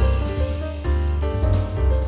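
Background music: keyboard chords held over a deep bass, changing every half second or so.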